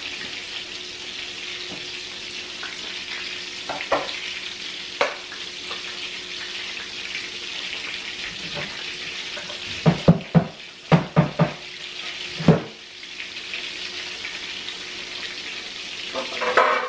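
Panko-breaded cod fillets frying in oil in a cast-iron skillet, a steady sizzle. A few single knocks sound early on, and a little after ten seconds in comes a quick run of five or six sharp knocks, louder than the sizzle.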